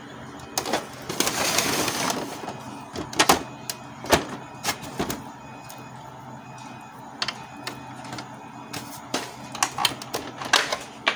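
Scattered plastic clicks and knocks from hands working inside a Canon MP287 inkjet printer around its print-head carriage, with a short scraping rustle about a second in.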